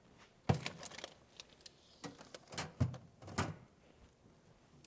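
Metal sheet trays knocking and clattering against refrigerator shelves as one tray is slid in and another taken out. There are several separate knocks, the loudest about half a second in.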